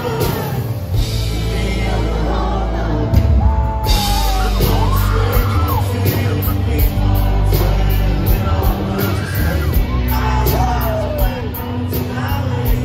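Live country band in concert: a male lead singer over acoustic and electric guitars, bass and drums, played loud through the stage sound system.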